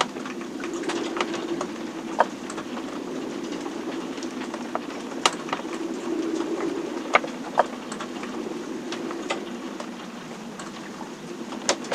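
Inside a sailboat's cabin during a storm: a steady rushing drone that swells and eases, with irregular sharp clicks and knocks from the boat working in the seas.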